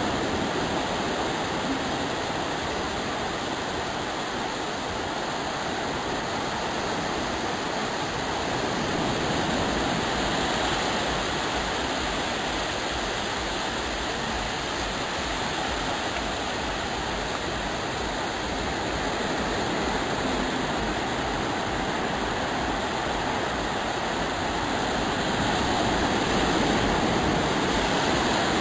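Small surf waves breaking and washing up over the sand at the water's edge: a steady rushing wash that swells a little each time a wave comes in.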